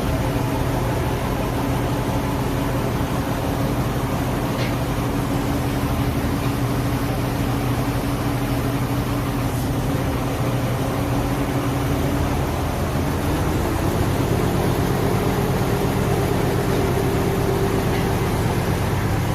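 Heavy machinery engine running steadily, picking up speed about two-thirds of the way through.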